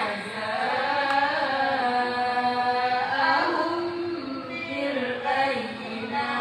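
Women's voices chanting a Qur'an recitation in a slow melody, long held notes that bend up and down in pitch.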